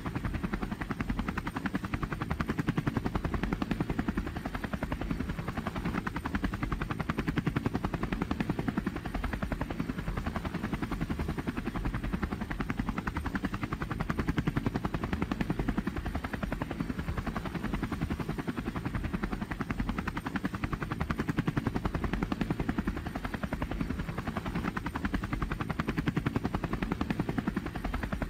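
Helicopter in flight heard from inside the cabin: a steady, fast rotor-blade chop over a loud low drone, swelling slightly every few seconds.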